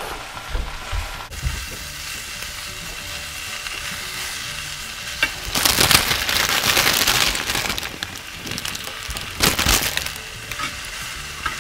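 Fresh spinach sizzling and wilting in a hot stainless steel sauté pan, stirred with a spatula. The sizzle holds steady, then grows louder for about two seconds near the middle and briefly again about three seconds later as the leaves are turned.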